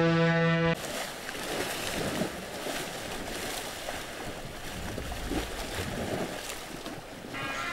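A ferry's horn blast cuts off abruptly under a second in. Then sea water splashes and rushes, choppy water on the move around a boat.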